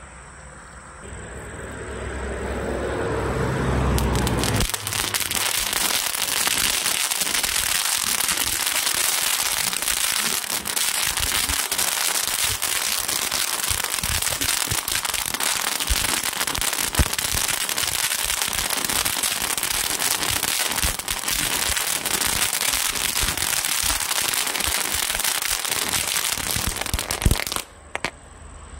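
Ben 10 Candle firework tube spraying sparks: a steady hiss thick with fine crackling. It builds up over the first few seconds and cuts off suddenly near the end.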